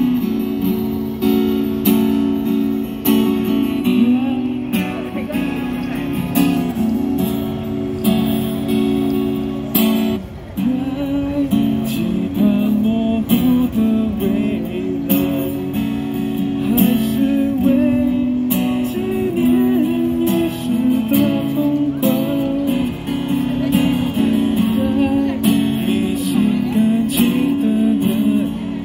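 Acoustic guitar strumming chords as accompaniment to a singer on a microphone, whose voice seems to come in about ten seconds in.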